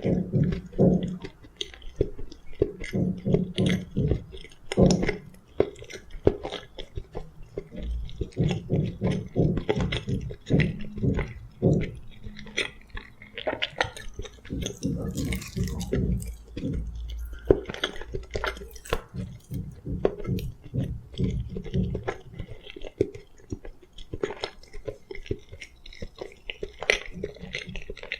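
Close-miked chewing and wet mouth sounds of someone eating soft food, with occasional crunches, dense and irregular.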